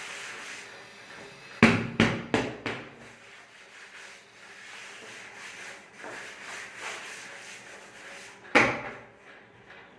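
Sharp knocks on wood: four in quick succession about a second and a half in, then one more hard knock near the end.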